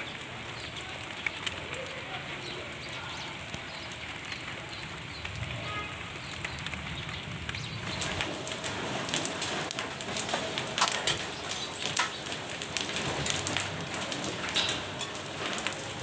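Hailstorm: a steady hiss of rain with the sharp ticks of hailstones striking the ground, the ticks growing denser and louder about halfway through.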